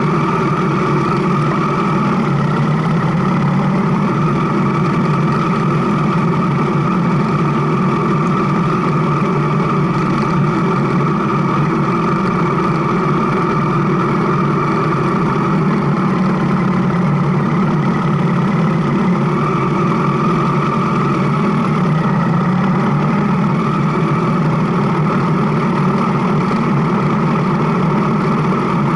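Motorcycle engine running steadily at a nearly constant pitch, with a slight change in tone about twenty seconds in.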